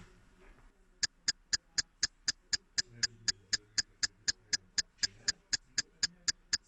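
A steady run of sharp, high ticks, very evenly spaced at about four a second, starting about a second in.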